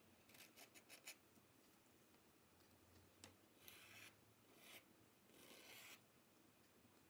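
Faint swishes of a paintbrush stroking paint onto a board. A quick run of short strokes comes in the first second, a small tap about three seconds in, then a few longer strokes.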